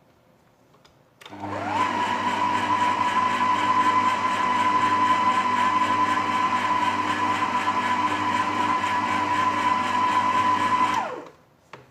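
Electric stand mixer switched on about a second in, its motor whine climbing quickly to a steady pitch as it mixes sugar, yeast and warm milk. It runs evenly for about nine seconds, then winds down and stops near the end.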